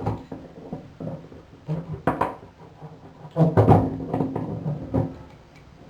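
Metal clanking and scraping as needle-nose pliers work the chrome strainer of a bathtub drain, in two main bursts about two seconds in and about three and a half seconds in.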